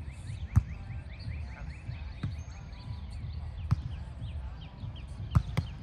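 A volleyball being struck: sharp smacks of hand on ball about every one and a half seconds, with two close together near the end. Many short high squeaks and a low rumble run underneath.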